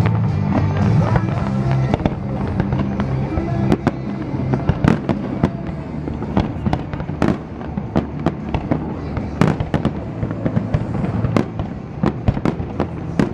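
Display fireworks bursting in quick, irregular succession, many sharp bangs one after another, over a music soundtrack that is loudest in the first couple of seconds.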